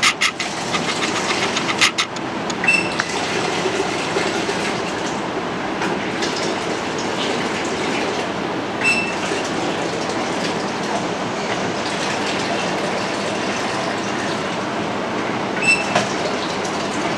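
Soft-serve ice cream machine running its cleaning cycle, with a steady mechanical running noise as rinse water is drawn off through the dispensing spouts into a jug. Three short clicks, each with a brief high ping, come about three seconds in, near the middle and near the end.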